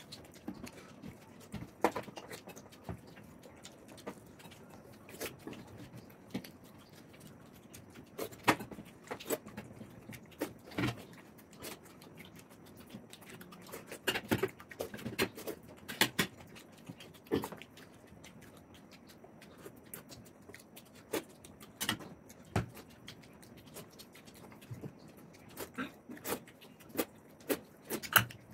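Two people eating puri and curry by hand: irregular chewing and lip-smacking mouth noises with scattered short clicks and taps, a second or so apart, denser in places.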